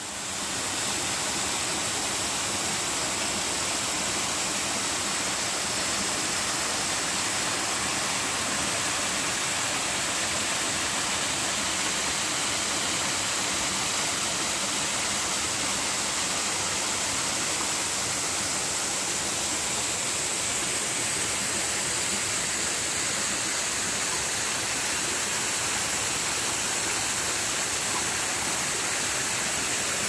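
Mountain stream running over rock slabs and small cascades: a steady, even rush of water.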